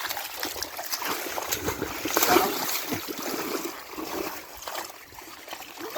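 Shallow pond water splashing and trickling in uneven bursts, as if being waded through or stirred by hand, loudest about two seconds in.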